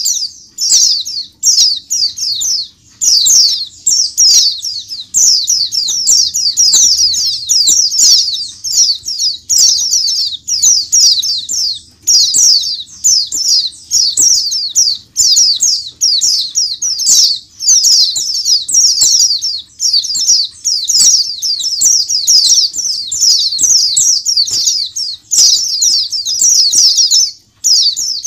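A crowd of caged white-eyes chirping and singing together: a dense, continuous chorus of rapid, high-pitched twittering phrases with hardly a pause.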